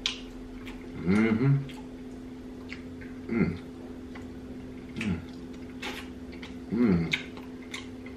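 A man chewing oxtail meat off the bone, with wet mouth and lip-smacking clicks, broken by about four short hummed 'mm' sounds of relish. A steady low hum runs underneath.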